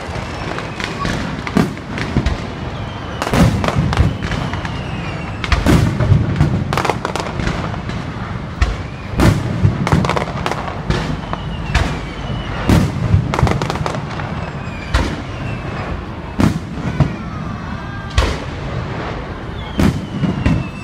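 Fireworks display: some twenty sharp bangs from bursting aerial shells at irregular intervals, with a continuous rush and crackle between them.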